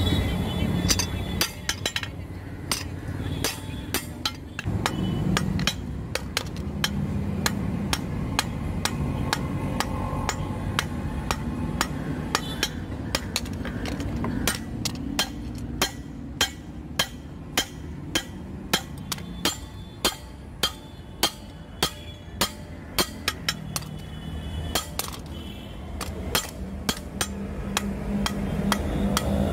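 Hand hammer striking a red-hot steel billhook blade, forged from a truck leaf spring, on an anvil: a long run of sharp ringing blows, settling into an even beat of about two a second in the middle stretch.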